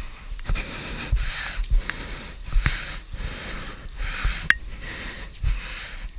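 A person breathing hard, with a rough hiss of air on each breath about once a second, and low thumps underneath.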